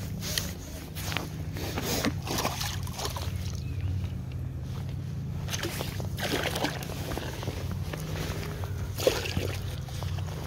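Water sloshing and splashing at the bank as a small pike is landed by hand, with clothing rustling and a steady low wind rumble on the microphone.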